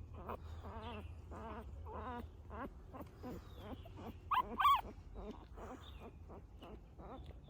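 Newborn puppies whimpering: a rapid string of short, high, wavering squeaks, with two louder cries about four and a half seconds in.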